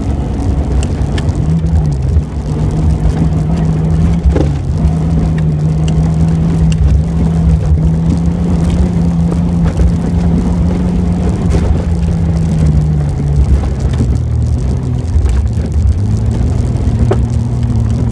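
Off-road vehicle's engine pulling hard at steady revs across a dirt course, dropping in pitch about three-quarters of the way through and climbing again near the end. Scattered clicks and knocks of dirt clods and gravel striking the body run over it.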